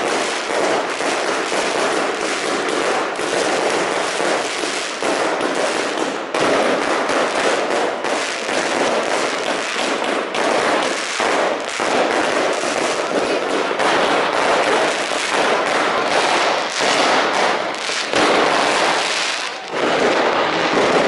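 Fireworks and firecrackers going off all around in a dense, almost unbroken barrage of bangs and crackling, with one brief lull near the end.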